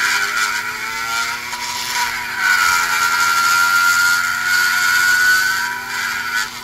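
High-speed pencil die grinder whining as its burr grinds inside a combustion chamber of an Oldsmobile 350 cast iron cylinder head. Its pitch sags about two seconds in as the bit loads up, then holds steady, and the tool stops abruptly at the end.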